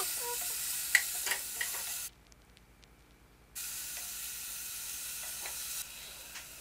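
Food sizzling in a hot pan, a steady frying hiss with a few sharp clicks from a utensil. The sound cuts out for about a second and a half in the middle, then returns.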